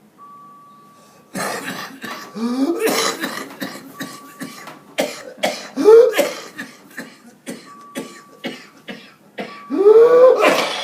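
Whooping cough (pertussis) coughing fit: rapid strings of short coughs, each run ending in a rising, high-pitched whooping gasp as air is drawn back in, three times. A faint steady tone comes and goes behind it.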